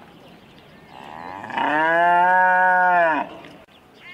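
A head of cattle mooing once, a single long, steady moo lasting just under two seconds, starting about a second and a half in.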